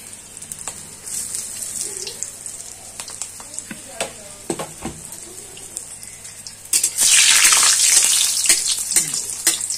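Besan-battered stuffed green chillies deep-frying in very hot oil in a kadhai: a steady sizzle with scattered pops and clicks. About seven seconds in, the sizzle suddenly grows much louder.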